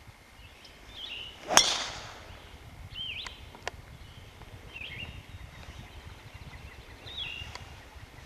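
Golf driver striking a ball off the tee about a second and a half in: one sharp crack, the loudest sound, with a short trailing smear after it. A bird calls with short chirps several times.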